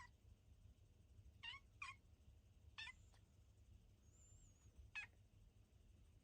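Munchkin kitten mewing: about five short, high-pitched mews, two of them in quick succession about a second and a half in.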